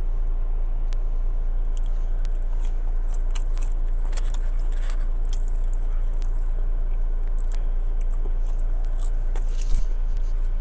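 Close-up chewing and biting of a fried chicken sandwich and fries: small wet mouth clicks and crunches scattered throughout, over a steady low hum.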